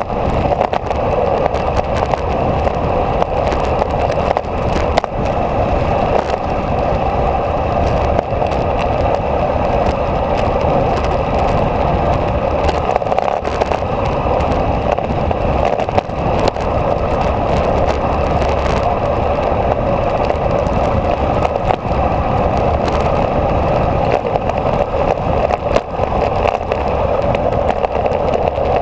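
Steady rushing wind noise on the microphone together with road rolling noise during a fast downhill descent, with frequent small crackles and clicks and no engine note.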